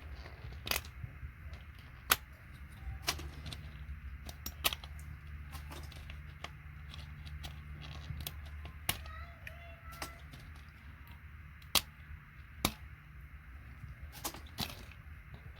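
Sharp plastic clicks and snaps at irregular intervals, about a dozen, as keys and tactile switches are pried and pulled out of an old keyboard, over a steady low hum.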